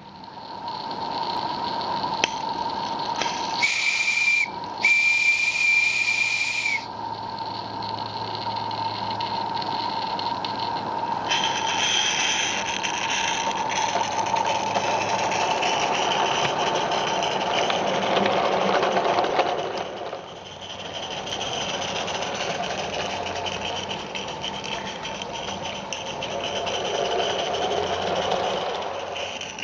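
Live-steam garden-railway locomotive from Merlin Locomotive Works sounding its steam whistle twice about four seconds in, a short blast then a longer one. Steam hisses steadily as it works a freight train away down the line.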